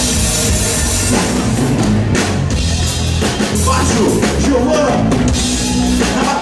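Live band playing rock music, with the drum kit to the fore over steady bass notes.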